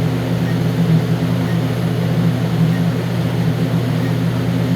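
Steady low mechanical hum of machinery or ventilation equipment, running at a constant level without change.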